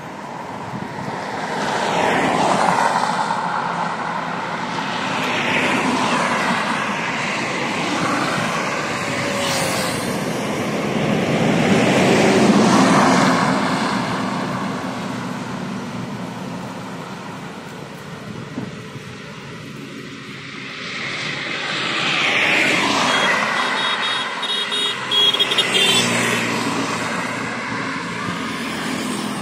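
Highway traffic passing close by: several trucks and cars go past one after another, the engine and tyre noise of each swelling and fading. The loudest pass is a heavy goods truck about halfway through.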